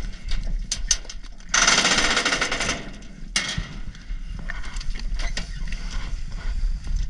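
Scattered knocks and clanks, with a loud rapid rattling clatter about a second and a half in that lasts about a second.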